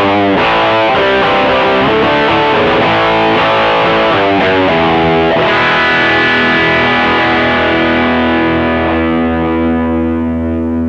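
Electric guitar with distortion and reverb, played through a pocket headphone amp and heard straight from its headphone output: quickly changing riffs and chords, then about halfway through a chord struck and left to ring, slowly fading.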